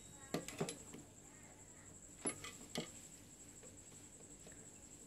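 About four sharp metallic clicks and taps as a screwdriver and a soldering iron knock against a car alternator's stator and rectifier: two close together near the start, two more a little after two seconds in.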